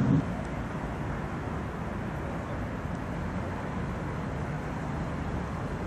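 Steady city traffic noise: an even rumble and hiss with no distinct events.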